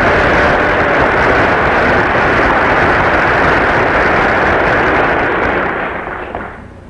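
Audience of members of Congress applauding: a sustained round of clapping that fades away near the end.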